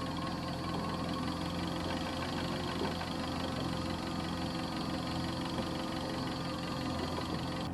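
Boat engine idling steadily, an even low drone.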